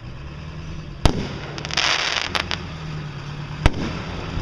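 Aerial fireworks going off: a sharp bang about a second in and another near the end, with a hissing burst of about half a second between them.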